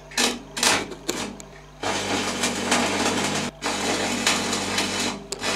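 Electric arc welding on a steel bracket: a few short crackling tack welds in the first two seconds, then a longer steady crackle of the arc from about two seconds in, broken once briefly, over a steady low hum.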